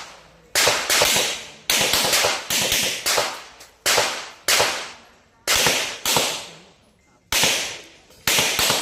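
A string of about fifteen gunshots in quick succession, most in close pairs, each sharp crack followed by a short echoing tail. These are the rapid pairs fired at each target in a practical shooting stage.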